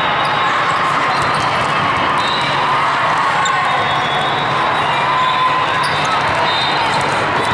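Steady din of a busy indoor sports hall during a match: many voices at once, broken by sharp hits of a ball.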